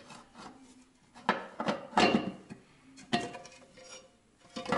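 Clunks and clatter of a VAZ 2106's air filter housing being handled: the lid lifted off and the parts knocking against each other, a few separate knocks about a second apart.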